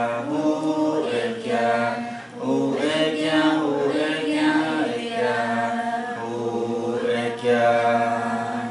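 Unaccompanied chant sung in long, held notes, in phrases with short breaks between them.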